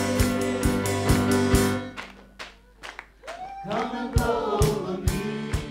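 Live worship band playing, with several singers over a drum kit and keyboard. About two seconds in the band drops almost to nothing, leaving only a few light drum or cymbal taps. A second or so later the voices come back in, followed by the drums.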